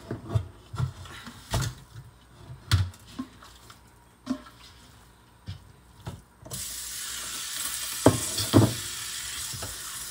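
Irregular knocks and thuds as raw beef strips are dropped and handled in a large metal colander in a stainless steel sink. About six and a half seconds in, the kitchen tap turns on and water runs steadily over the meat as it is rinsed, with a couple of loud clunks against the colander.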